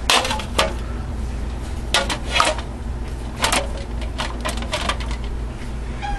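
Glass canning jars clinking against each other and knocking down onto the metal rack inside a pressure canner as they are loaded. A few sharp clinks come at irregular intervals, with a quick cluster of them near the end, over a steady low hum.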